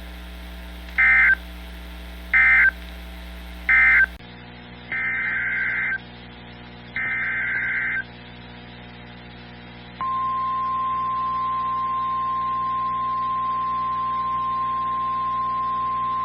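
Emergency Alert System SAME data bursts: three short screeching digital squawks marking the end of one alert. After a cut come two longer bursts of the next alert's header. About ten seconds in, the steady single-pitch 1050 Hz NOAA Weather Radio warning alarm tone starts and holds.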